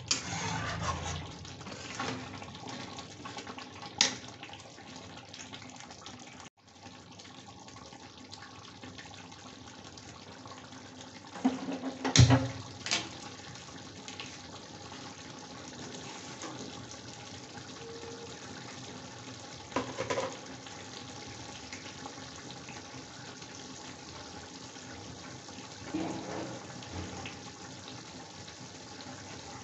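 Chicken curry gravy bubbling and simmering in a steel kadai, with a few knocks of a metal spatula against the pan, the loudest about twelve seconds in.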